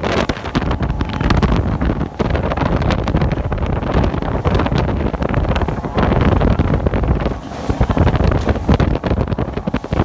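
Heavy wind buffeting the phone's microphone aboard a Bayliner Capri runabout under way at speed, with rushing water and engine noise mixed in underneath. The buffeting comes in uneven gusts, dipping briefly a couple of times.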